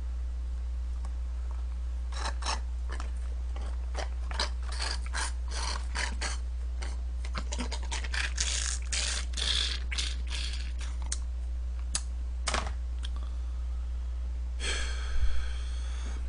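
Juice box drained through a straw while the carton is squeezed: a run of irregular slurping crackles and clicks lasting about ten seconds. A short vocal sound comes near the end, over a steady low hum.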